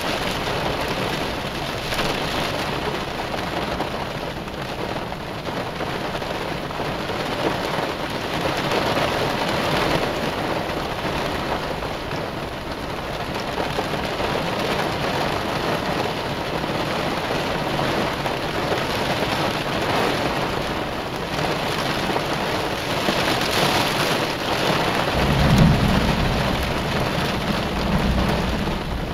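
Heavy rain falling steadily during a thunderstorm. About 25 seconds in, a low thunder rumble rises, swelling twice.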